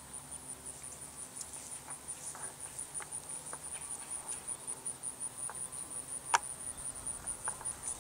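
Crickets chirping in a fast, even, high-pitched pulse. A single sharp click comes a little after six seconds in.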